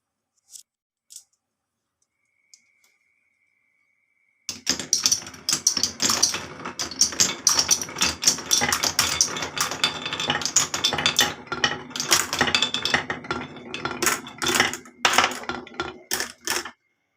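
Marbles rolling and clattering down a marble run: a couple of single clicks, then from about four seconds in a dense, continuous rattle of many quick hits that stops suddenly near the end.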